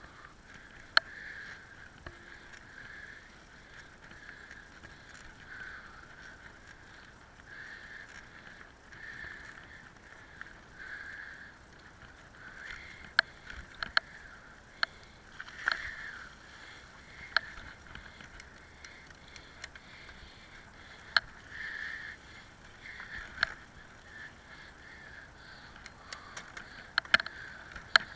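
Bicycle riding over a rough, potholed and puddled track, heard from the handlebars. The tyres make a steady rumble, and sharp knocks and rattles come as the bike jolts over bumps, more of them about halfway through and near the end.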